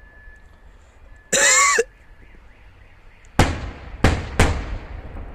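Three aerial firework shells bursting in quick succession, each a sharp bang trailing off in a low rumble, in the second half. Before them comes a brief loud voice sound with a wavering pitch.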